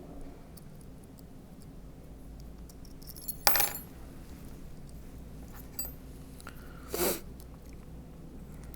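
Small metal parts clinking twice, about three and a half seconds in and again about seven seconds in. The first clink is the louder, with a brief high ring.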